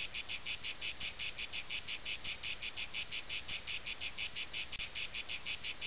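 Cricket chirping in a steady, even rhythm of short high-pitched pulses, about seven a second.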